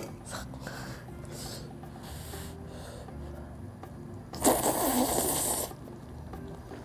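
One long, loud slurp of whole cooked octopus tentacles being sucked into the mouth like noodles, about four and a half seconds in and lasting just over a second.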